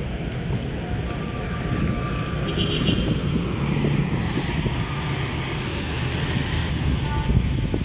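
Steady street traffic of motorcycles and cars passing, with wind rumbling on the microphone.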